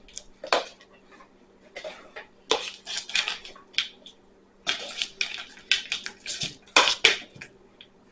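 A spoon scraping and clinking against a bowl in bursts as a slime mixture of glue and activator is stirred.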